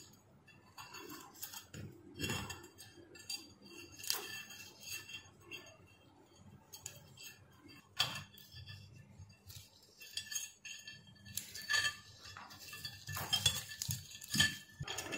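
Scattered small metallic clicks and clinks of needle-nose pliers and thin steel wire as the wire is twisted onto the end of an electric heater's coiled heating element.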